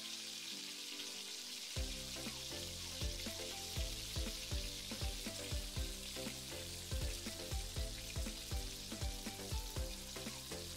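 Cooking oil sizzling in a nonstick frying pan as sliced mushrooms are sautéed, a steady hiss throughout. Soft background music with a regular beat comes in about two seconds in.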